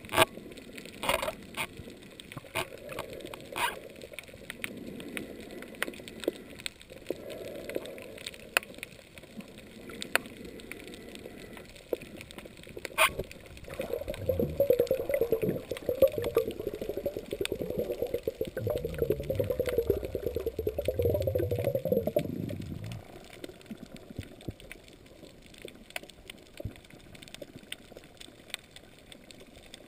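Underwater sound on a coral reef: scattered sharp clicks and cracks over a low background. From about 14 to 22 seconds in, a louder dense crackling rumble joins it, then stops.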